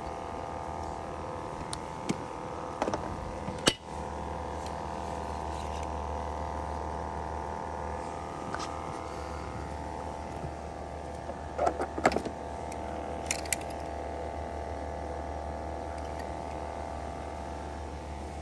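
A steady mechanical hum, with a few sharp clicks and knocks: one loud knock about four seconds in and a quick cluster of them around twelve seconds in.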